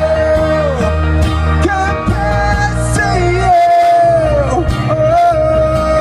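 Live pop band playing the end of a song: guitar and bass under a held, sliding lead melody line.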